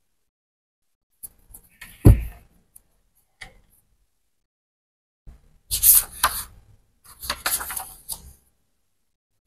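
A thick paperback book set down on a tabletop with a single thump about two seconds in, with a few small handling clicks around it. Then its pages are riffled and turned in two rustling flurries in the second half.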